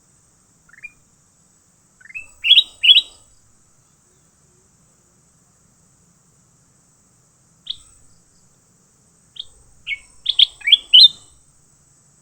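A songbird giving short, sharp rising chirps in clusters: a loud pair about three seconds in, a single one in the middle, and a quick run of five or six near the end.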